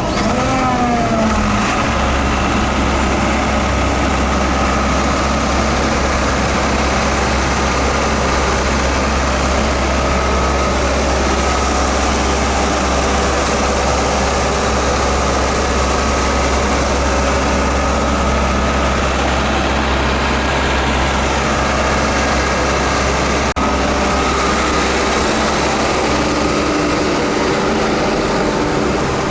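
Heavy diesel road-paving machinery running steadily. A deep, even drone sets in about two seconds in and holds.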